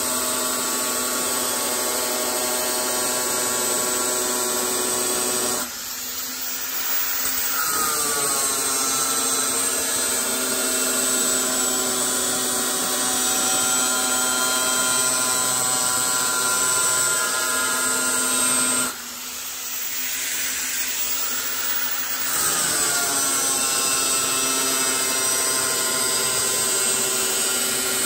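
Electric angle grinder with a cutting disc slicing through a steel sheet in a long straight cut: a steady high whine over harsh grinding. Twice, about six and nineteen seconds in, the sound drops away for a couple of seconds, then builds back up.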